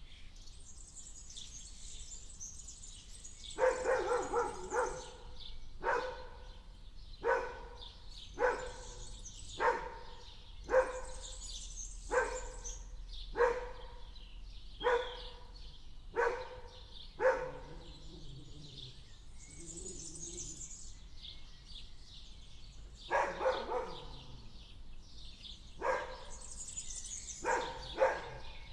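A dog barking in a long series of single barks, about one every second and a half, with a pause of several seconds partway through before it starts again. Birds chirp steadily throughout.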